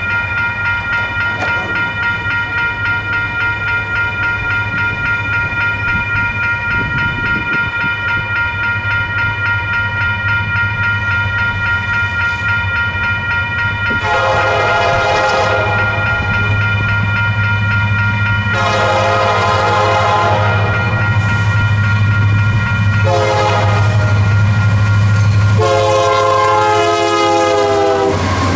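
A grade-crossing bell rings with a steady, rapid beat. About halfway through, an approaching Union Pacific freight train sounds its multi-chime horn in the crossing pattern: two long blasts, a short one and a final long one. Under the horn, the rumble of its diesel locomotives grows as they arrive.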